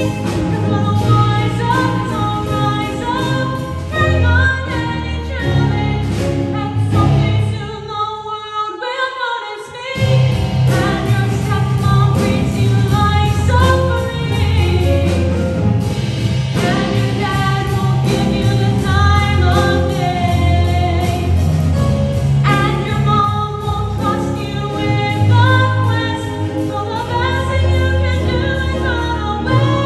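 A female voice singing a musical-theatre solo over instrumental accompaniment. The accompaniment thins out briefly about eight seconds in, then comes back in full about two seconds later.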